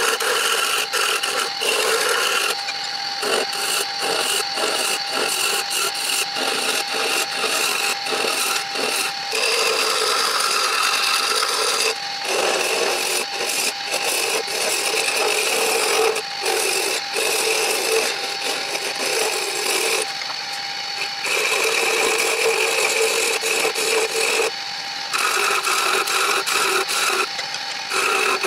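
Wood lathe running with a steady hum while a file is held against the spinning wooden spindle, giving a continuous rasping scrape with rapid clicks and rattles. The scraping eases off briefly a few times as the file is lifted and reset.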